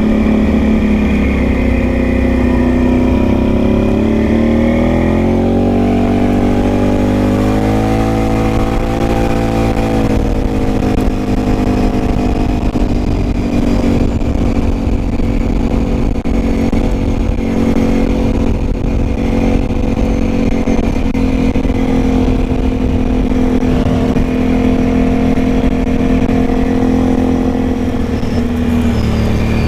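Can-Am Outlander ATV engine under way on a gravel road. Its pitch climbs as the quad accelerates over the first several seconds, then holds fairly steady while it cruises, with tyre and road rumble underneath.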